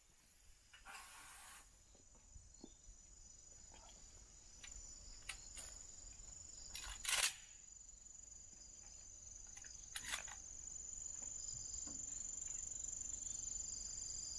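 Faint outdoor ambience: a steady high-pitched hum with scattered small clicks and knocks. The loudest is a sharp crack about seven seconds in, with a lesser one near ten seconds.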